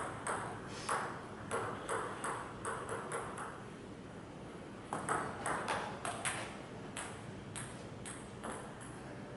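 Table tennis ball clicking off paddles and the table in quick rallies: a fast run of ticks for about three and a half seconds, a short pause, then another run from about five seconds in that stops well before the end.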